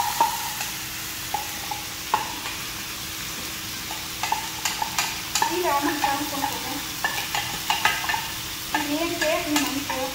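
Raw rice sizzling as it fries in oil in a saucepan, stirred with a wooden spoon. A steady hiss of frying runs underneath, and from about four seconds in the stirring grows busier, with frequent scrapes and clicks of the spoon against the pot.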